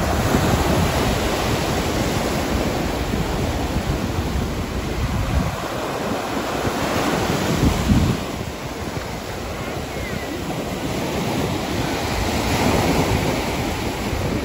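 Ocean surf breaking and washing up a sandy beach, a continuous roar that swells and eases with the waves. Wind buffets the microphone with a low rumble.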